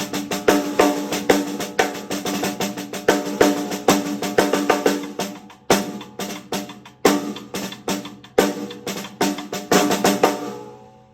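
TAMA Starclassic Walnut/Birch 14x6.5-inch snare drum played in a busy pattern of quick strokes along with a drum kit, the drum ringing out and dying away near the end.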